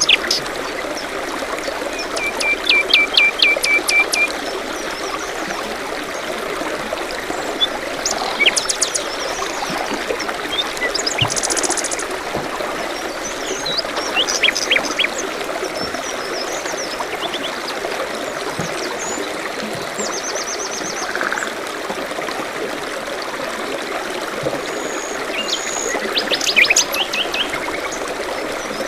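Several small songbirds chirping and trilling over the steady trickle of a forest stream. A run of evenly spaced notes comes about two seconds in, a high buzzy trill near the middle, and a cluster of calls near the end.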